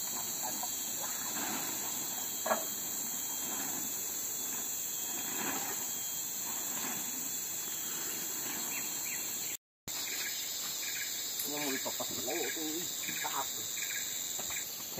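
Forest insect chorus: a steady, high-pitched drone in several layered pitches. It drops out for a moment about two-thirds of the way through.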